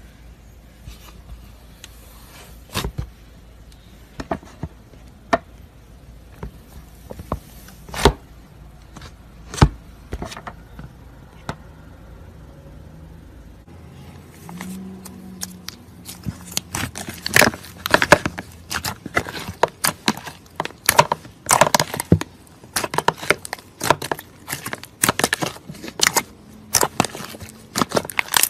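Slime being squeezed and stretched by hand, making sharp crackling pops and clicks: scattered at first, then a dense run of pops from about halfway in.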